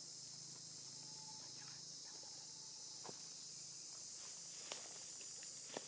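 Steady high-pitched insect chorus, crickets or cicadas, with a few faint sharp clicks near the end.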